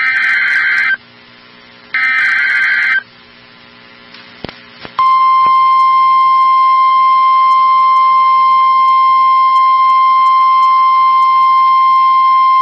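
NOAA Weather Radio EAS alert: the last two screechy one-second SAME header data bursts, a second apart, then a click and the steady single-pitch 1050 Hz warning alarm tone starting about five seconds in. The tone signals that a warning, here a tornado warning, is being broadcast.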